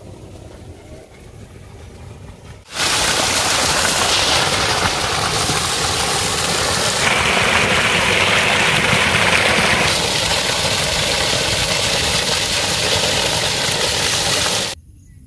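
Water poured in a heavy stream over cut fish strips in a plastic colander, splashing as the fish is rinsed. It starts suddenly about three seconds in and stops suddenly just before the end.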